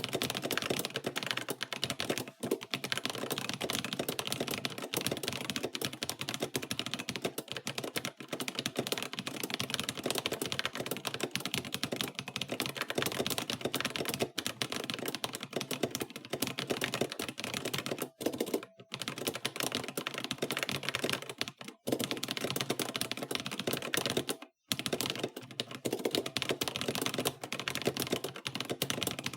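Fast typing on a GK61 mechanical keyboard with pre-lubed Holy Panda tactile switches in an aluminium case: a dense, continuous stream of keystroke clacks, broken by a few short pauses.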